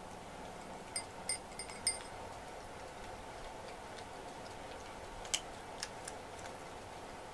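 A cat eating from a ceramic food bowl. There are four light, ringing clinks between one and two seconds in, then a few sharp clicks a little past the middle, over a faint steady hum.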